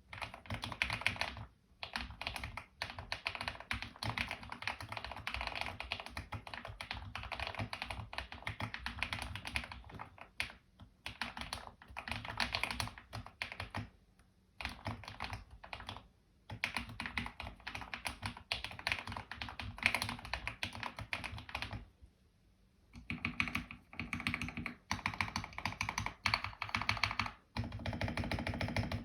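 Typing on a custom 75% mechanical keyboard in an EPOMAKER EP84 case, with lubed KTT Rose linear switches, black doubleshot PBT keycaps, case foam and tape mod: a dense stream of keystrokes with a few short pauses, the longest a little over twenty seconds in.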